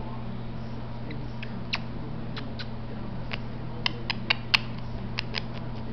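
Conure making a string of short, sharp kissy smacking clicks, spread out at first and coming in a quick cluster about four seconds in, over a steady low hum.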